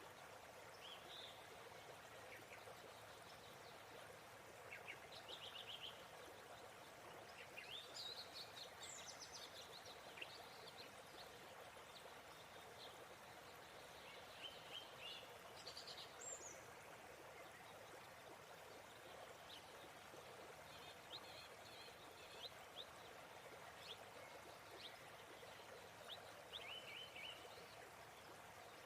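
Quiet, steady rush of falling water from a waterfall, with small birds chirping in short scattered calls over it.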